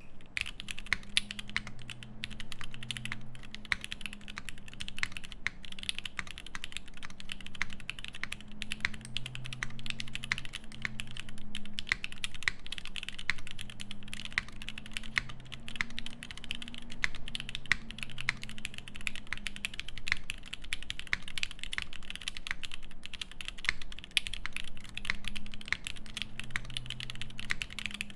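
Continuous typing on a Keycult No.1 TKL mechanical keyboard with lubed Alpaca switches in an aluminium plate and GMK keycaps: a dense, unbroken stream of key strokes.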